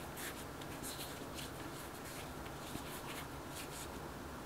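Floured hands rounding a ball of soft pretzel dough on a work surface: a series of short, soft, dry rubbing and brushing strokes, roughly one every half second, over a steady low hiss.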